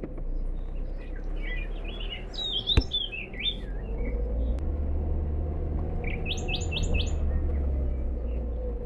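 Wild birds chirping, with a fast run of short rising notes past the middle, over the steady low rumble of a vehicle driving. A single sharp click about three seconds in.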